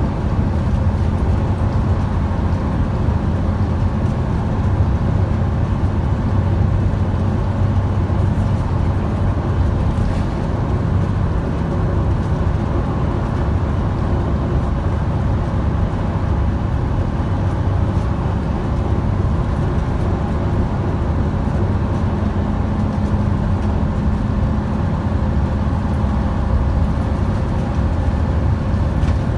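Scania N230UD OmniCity bus's five-cylinder diesel engine running steadily as the bus drives along at speed, heard from inside the passenger saloon with road noise.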